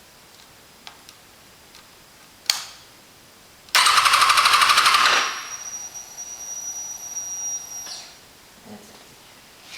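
A click, then the Kawasaki ZX-6R's starter cranking the engine in a quick even rhythm for about a second and a half without it firing, followed by a fainter steady high whine that stops about three seconds later.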